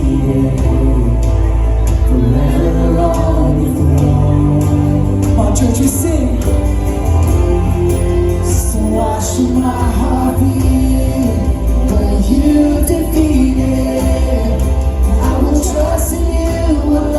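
Worship band music between sung lines of a song: sustained keys and a steady deep bass, with voices singing loosely over it.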